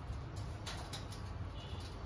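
A few soft, brief scratchy clicks about two thirds of a second in, as rose-ringed parakeets step about on a wire-mesh cage top, over a low steady rumble.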